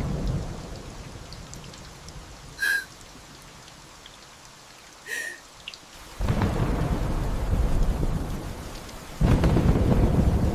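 Heavy rain falling with thunder. A rumble dies away over the first couple of seconds, then loud rolls of thunder break in suddenly about six seconds in and again about nine seconds in. Two brief high squeaks are heard around three and five seconds in.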